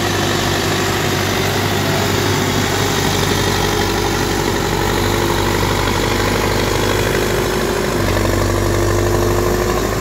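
Terex TLB 844S backhoe loader's diesel engine running steadily as the machine drives with a loaded front bucket, a steady whine riding over the engine note. About eight seconds in, the low engine sound deepens and grows a little louder.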